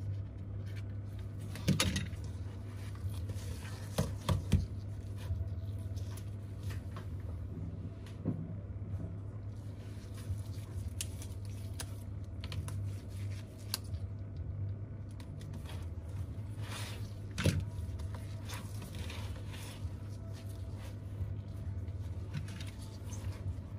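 Light clicks, taps and scrapes of small hand tools and parts being handled against a tablet's glass and metal frame, with a few sharper taps, over a steady low hum.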